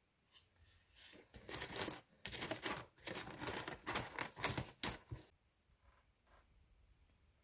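Steel nuts, washers and bolts clinking and jingling against each other as a hand rummages through them in a cardboard box, starting about a second in and stopping after about five seconds.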